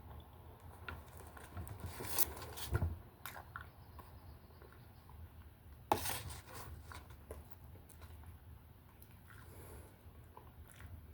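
A person eating a chili dog: chewing and biting with scattered short, wet mouth clicks, a cluster of louder ones about two seconds in, and one sharp click about six seconds in.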